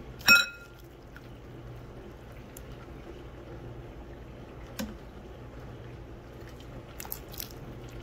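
A metal ladle clinks once against the pot with a short ring, then hot broth is ladled and poured into a bowl of noodles, with a few faint clinks later on.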